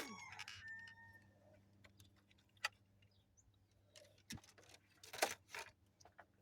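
Scattered small clicks and light rattles of hands handling a car's headlight bulb and its plastic housing in the engine bay, the sharpest click about five seconds in.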